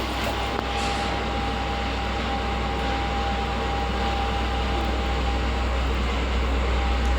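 LG Gold Star lift car travelling between floors: a steady low hum and rushing travel noise, heard from inside the car, with a thin steady whine that stops about six seconds in.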